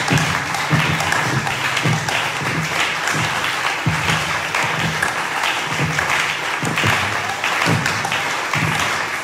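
Church congregation applauding steadily for the Lord, with music playing underneath.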